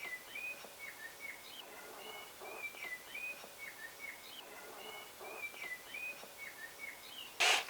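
A small bird singing a continuous run of short, quick chirping and warbling notes, with faint knocks underneath and a brief burst of rustling noise near the end.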